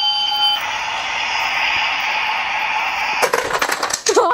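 Battery-operated toy toaster playing its electronic sound effect: a steady beeping tone for about half a second, then an even hiss for about two and a half seconds, then a quick run of clicks near the end.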